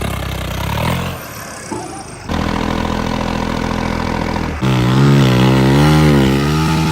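Heavy vehicle engines running and revving, in short clips cut together abruptly about one, two and four and a half seconds in. In the last clip the engine's pitch wavers up and down as it labours.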